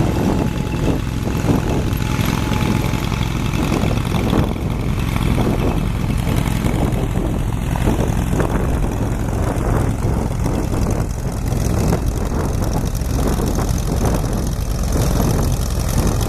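Ford 2N tractor's four-cylinder flathead engine running steadily.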